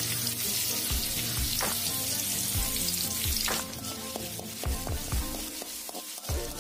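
Chopped onion and ginger-garlic sizzling in hot sunflower oil in a metal kadai, stirred with a metal spoon that scrapes and knocks against the pan. The sizzle is loudest at first and thins out about three and a half seconds in.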